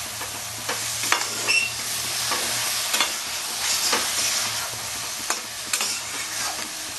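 Shredded cabbage, prawns and potatoes sizzling in oil in a kadai while a flat metal spatula stirs them, with repeated scrapes and clinks of the spatula against the pan.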